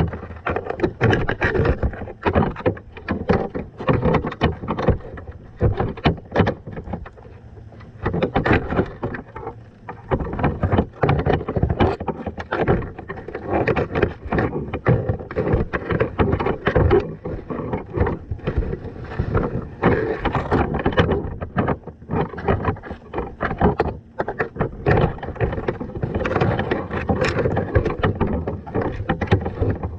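Muffled water noise and dense, irregular knocks and clunks picked up by an underwater camera in its waterproof housing, fixed to a crab trap on the sea bottom.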